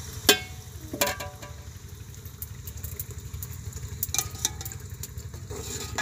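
Metal ladle knocking against the side of an aluminium cooking pot of curry several times, each clink with a short metallic ring, the loudest just after the start, more about a second in, around four seconds in and at the end. A steady low rumble runs underneath.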